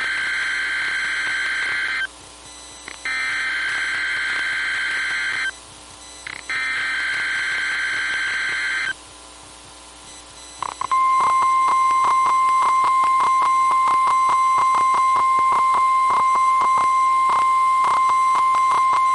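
NOAA Weather Radio weekly test alert heard over a weather radio. First come three bursts of SAME digital header data, each about two and a half seconds long with short gaps. About eleven seconds in, the steady 1050 Hz warning alarm tone starts, the tone that switches on weather alert receivers.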